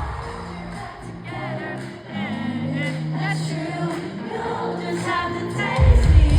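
Pop song performed live in an arena: a singing voice, with the crowd singing along, over sustained low chords while the drums drop out. The heavy bass beat comes back in near the end.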